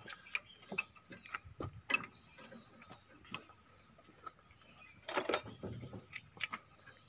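Hand ratchet wrench clicking as the head bolts of an excavator's hydraulic boom cylinder are tightened, with scattered clicks, a quiet spell in the middle, and a quick run of clicks about five seconds in.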